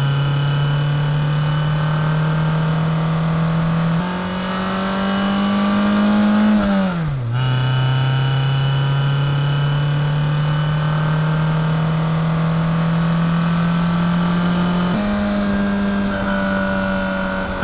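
A motor's steady droning hum that steps up in pitch, climbs, then drops sharply about seven seconds in and settles lower, like an engine revving and changing gear; it steps up again near the end.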